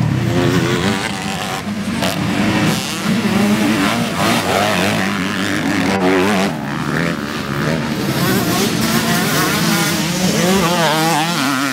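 Several 250 cc dirt bike engines racing, each revving up and falling back repeatedly as the riders work the throttle through the turns and jumps.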